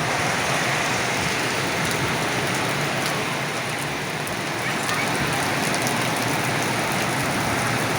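Steady rain during a thunderstorm, an even hiss with small ticks of drops striking close by.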